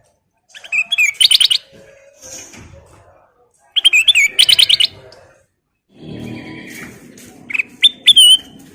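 A kutilang emas bulbul singing in three loud bursts of quick, warbling whistled phrases, near the start, in the middle and near the end. In the last third a low, steady rumbling noise runs under the song.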